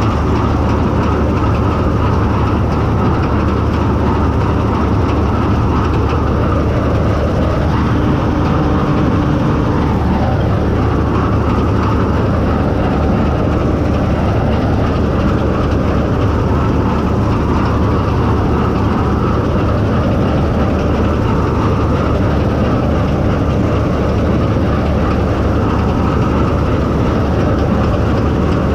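Bizon Z056 combine harvester running steadily while cutting triticale: a constant heavy drone of engine and threshing machinery, with no change in level.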